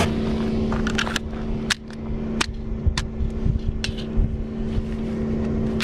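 Scattered sharp clicks and clacks from handling a Springfield Armory XD(M) .45 ACP pistol, over a steady low hum. No shot is fired.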